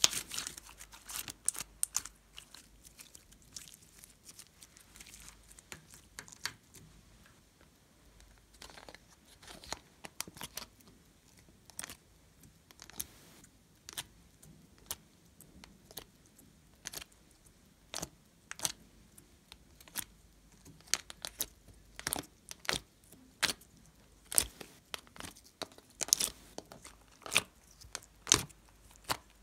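Hands squeezing and pressing slime and soft clay, making sticky pops, crackles and squelches in irregular clusters, with a quieter stretch early on before the pops pick up again.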